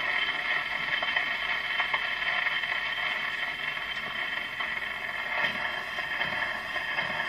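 Needle of a portable gramophone's soundbox riding the run-out groove of a 78 rpm shellac record once the song has ended: steady surface hiss and crackle.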